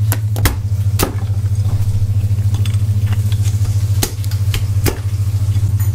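A knife chopping through a lobster on a plastic cutting board: several sharp knocks, three in the first second and three more from about four seconds in, over a loud, steady low hum.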